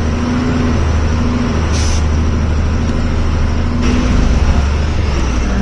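A loaded goods truck's diesel engine running steadily at low speed on a rough off-road track, heard from inside the cab. A short hiss of air comes about two seconds in, and about four seconds in the engine note shifts and grows a little louder.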